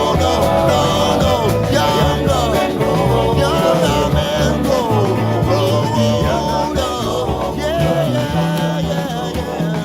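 Folk-rock band music with no sung words: a steady drum beat, bass, and sliding lead melody lines.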